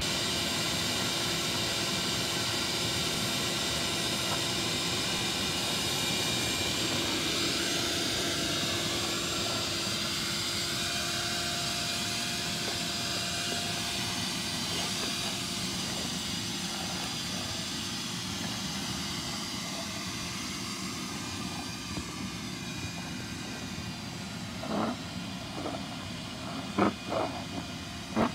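Ridgid wet/dry shop vacuum running steadily with a motor whine as its hose nozzle sucks up dry absorbent powder from asphalt, slowly getting quieter. A few short knocks near the end.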